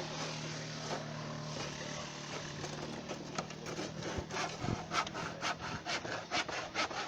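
Hand saw cutting through wood. The saw runs in quick, even back-and-forth strokes, about three a second, starting roughly three seconds in.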